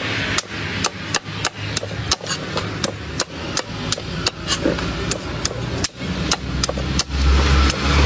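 Repeated chopping strikes of a large knife biting into a wooden block on a stump chopping block, a sharp knock about three times a second over steady background noise. A low rumble comes up near the end.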